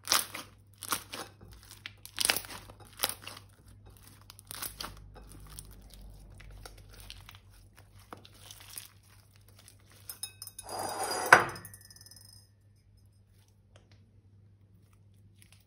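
Thick slime being squeezed and kneaded by hand, crackling and popping in short bursts as air pockets squish out. About ten seconds in, a longer and louder run of dense crackling as the slime is pulled and stretched, after which it goes quiet.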